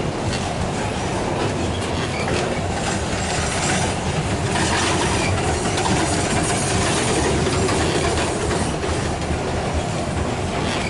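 Freight train wagons rolling past, steel wheels on the rails making a steady rumble with irregular clicks over the rail joints.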